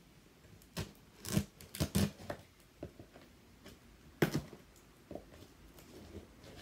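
Cardboard box and packaging being handled and opened: a run of separate knocks and rustles, the loudest a sharp knock about four seconds in.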